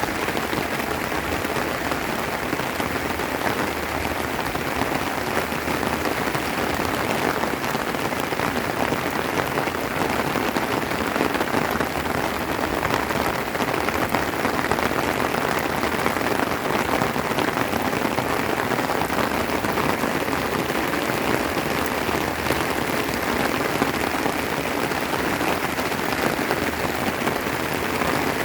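Steady rain falling, an even dense hiss of drops.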